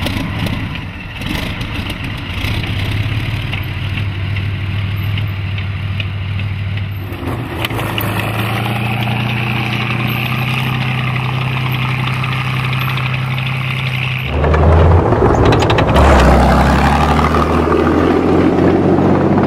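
Kharkiv V-2 38.8-litre V12 tank diesel in a T-34 running with a steady low note. The sound changes about 7 seconds in and gets louder and deeper about 14 seconds in.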